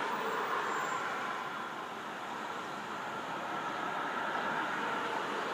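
Cars passing on a street, mostly tyre noise with some engine sound. One car goes by at the start and fades, and the sound swells again toward the end as another car approaches.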